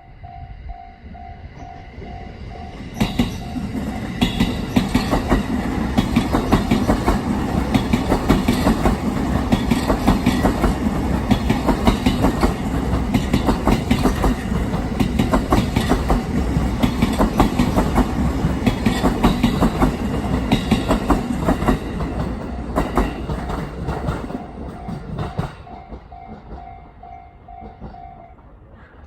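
Level-crossing alarm ringing the standard JR electronic bell in a steady pulse while a train passes over the crossing. The train is loud from about three seconds in, with rapid clicking of wheels over rail joints, and fades away after about twenty seconds. The bell then goes on alone and stops shortly before the end.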